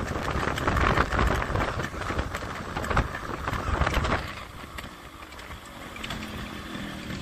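Riding noise on a Yamaha RX 100 motorcycle: wind buffeting the microphone over the running two-stroke engine. The rush drops off noticeably about four seconds in.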